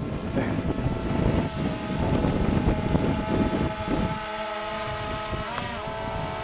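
DJI quadcopter drone hovering overhead, its propellers giving a steady multi-tone buzz. Wind buffets the microphone for the first few seconds. About five and a half seconds in, the buzz briefly dips and rises in pitch as the drone adjusts.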